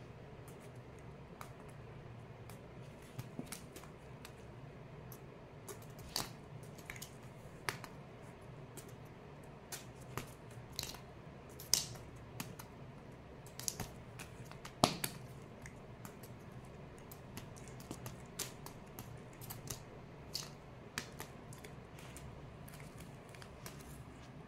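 Scattered light clicks and taps from kittens playing with a wand toy on a woven floor mat, over a faint steady low hum. The two loudest taps come about halfway through, a few seconds apart.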